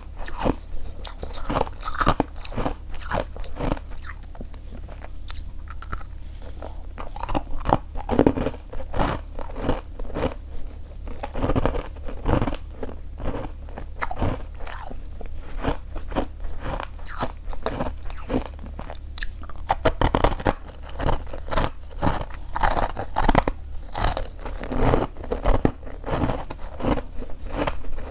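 Close-miked crunchy chewing of freezer frost: many quick, irregular crackling crunches as mouthfuls of packed frost are bitten and chewed.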